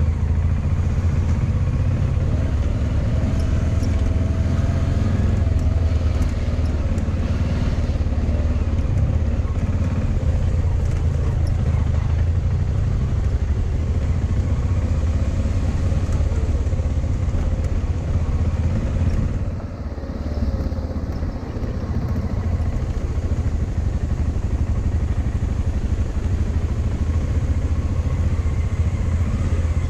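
Motorcycle engine running steadily at low speed while riding a gravel track, with a brief drop in level about two-thirds of the way through.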